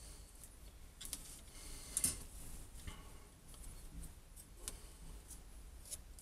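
A few faint, scattered clicks and light scrapes as a thin wooden stick scrapes squeezed-out resin from around a small clamp holding a glued fossil nodule. The sharpest click comes about two seconds in.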